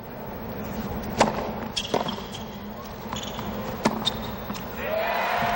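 A tennis ball struck back and forth by rackets in a short rally on a hard court: several sharp hits over a hushed stadium crowd. Near the end the crowd noise swells as the point ends.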